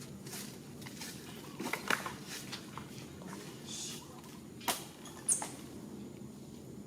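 Scattered light clicks and rustling around monkeys, with a brief high squeak a little before the middle and two sharp clicks soon after.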